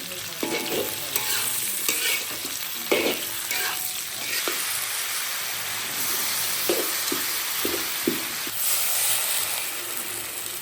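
Sliced dried sausage sizzling in a wok as it is stir-fried, with a spatula scraping and knocking against the pan in quick strokes during the first few seconds and again a little past the middle.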